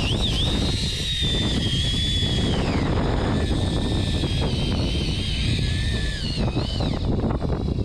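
Steady rumble of a fishing boat at sea with wind on the microphone. Over it runs a high motor whine that slides and dips in pitch.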